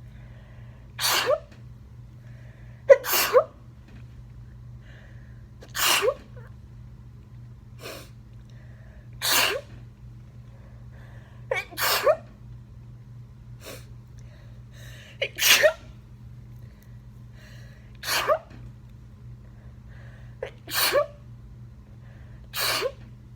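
A person sneezing over and over in a covered sneezing fit, about ten sneezes spaced every two to four seconds, two coming in quick succession near the start. A few are preceded by a short, sharp intake of breath.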